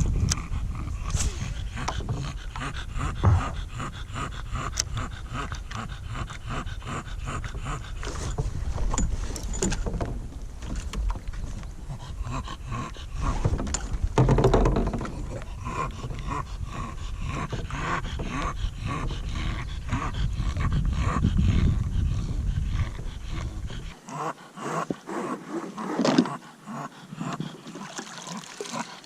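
A bulldog breathing and stirring close by in a kayak, over a low rumble.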